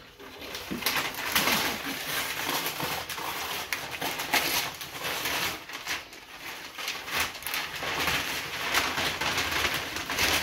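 Sheets of brown kraft paper and gift wrap rustling, crinkling and tearing as hands pull them open to unwrap a large, flat gift, with a dense run of crackles.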